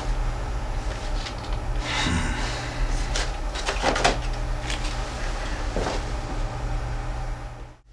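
Plastic VHS cassette cases clattering and knocking as they are pulled from and pushed back into a wooden shelf rack, a handful of separate knocks over a steady electrical hum. The sound cuts off suddenly near the end.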